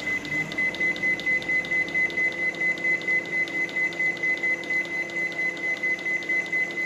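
Samsung microwave oven's keypad beeping rapidly, about five short beeps a second, as a held button runs the cooking timer up, over the low hum of the oven running.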